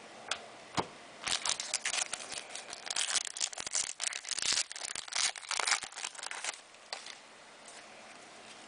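Crinkling and tearing of plastic trading-card packaging being handled, a dense crackly run of about five seconds that starts a little over a second in and dies away near the end.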